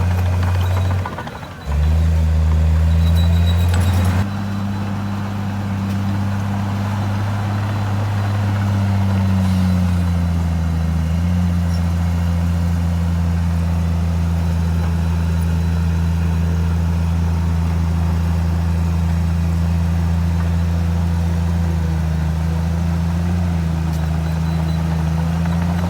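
Heavy diesel earthmoving machinery running steadily with a deep, even drone. The sound drops and shifts abruptly a couple of times in the first few seconds, then holds steady.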